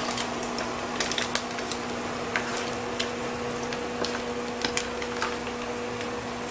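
Scad fish frying in hot oil in a wok: irregular sharp crackles and pops over a steady hiss. A steady low hum runs underneath.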